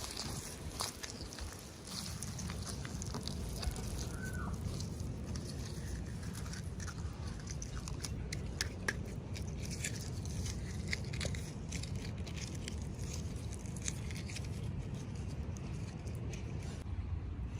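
Toy packaging being handled and opened: scattered crinkles, clicks and small crackles of plastic and paper, over a steady low rumble.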